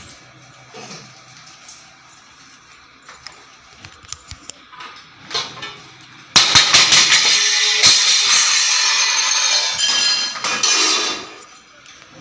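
Steel kitchen utensils clinking faintly, then a sudden loud, dense clatter of metal vessels about six seconds in that lasts some five seconds before fading, as the wild elephant's trunk rummages through the kitchen counter and rack.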